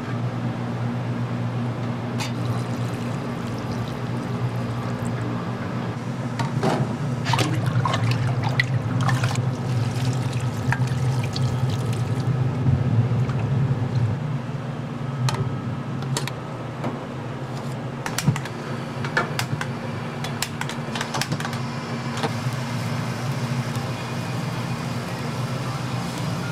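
Water running or pouring over a steady low hum, with scattered clinks and knocks of kitchen work.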